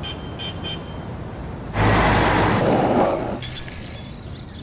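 Street traffic: three quick high beeps near the start, then a vehicle passing close by with a loud rush of noise, followed by a short high-pitched toot.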